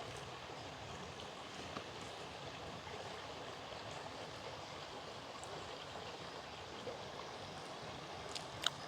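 Steady rushing of flowing water, like a stream, with a few faint clicks and one sharper click near the end.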